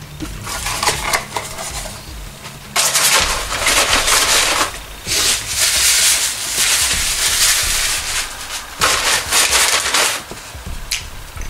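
Paper food packaging crinkling and rustling in several bursts, handled and crumpled in the hands, the loudest starting about three seconds in.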